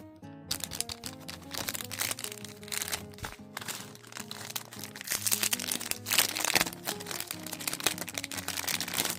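Packaging being handled and crinkled, a dense crackling that starts about half a second in and is busiest about two-thirds of the way through, over steady background music.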